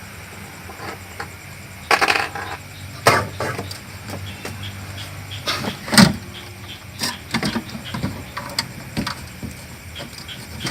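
Irregular knocks, clicks and clatter of refrigerator panels and parts being handled and pried during disassembly, the loudest knocks about two, three and six seconds in, over a steady hum.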